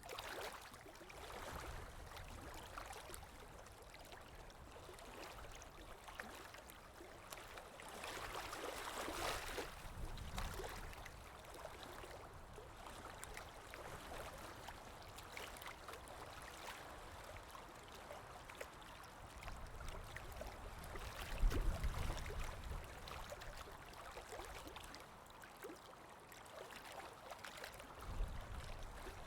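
Running water trickling and gurgling steadily and faintly, with small splashes. A few low rumbles come through, the loudest about two-thirds of the way in.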